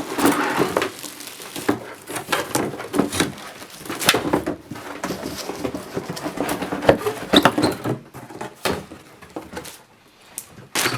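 A cardboard box and its packing being handled while a new humidifier is unpacked: irregular rustling, scraping and knocking, with a sharp knock near the end.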